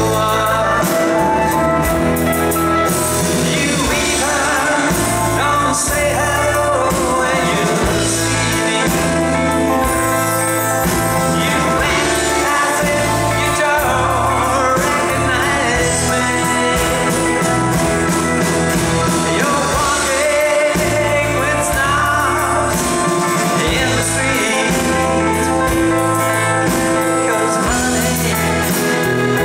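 Live band playing a pop-rock song, a man singing lead with acoustic guitar, drums and keyboards behind him.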